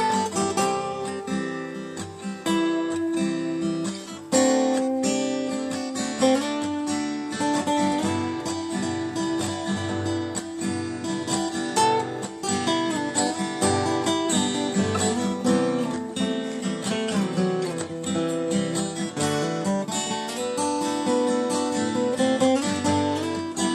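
Acoustic guitar playing the instrumental break of a folk song: strummed chords with a melody picked out over them, and no singing.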